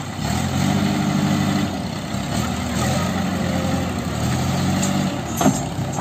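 A JCB backhoe loader's diesel engine running as the machine drives and turns, its note swelling and easing with the throttle. A single sharp clank comes near the end.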